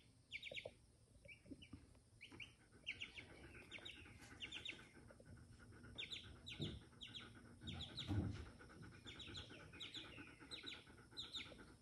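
Baby chick peeping over and over, faint short high peeps that fall in pitch, about two a second. A soft low thud or two comes about two-thirds of the way through.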